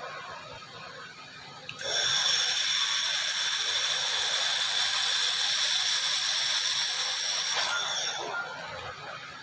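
Handheld fiber laser welder firing on steel: a steady hiss with a high whine that starts suddenly about two seconds in, runs for about six seconds, and cuts off sharply.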